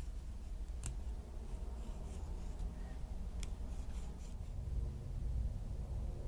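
Quiet handling sounds of wires and alligator clips being fitted to a small circuit board: light rubbing with two sharp clicks, about a second in and again past three seconds, over a low steady hum that grows a little louder in the second half.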